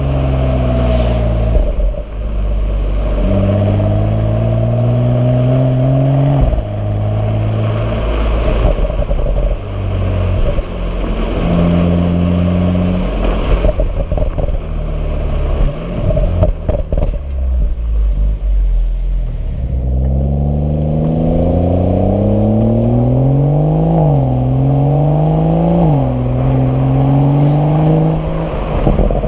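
Exhaust of a BMW M135i or M140i (3.0-litre turbocharged straight-six, standard exhaust) as the car accelerates. The pitch rises in each gear and drops sharply at each automatic upshift, several times in quick succession near the end.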